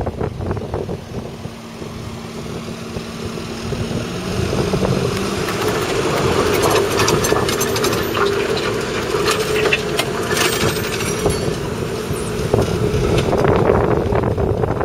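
Fendt 824 Vario tractor's 6.1-litre six-cylinder diesel running steadily under load while pulling a reversible plough, growing louder as it comes closer in the first half.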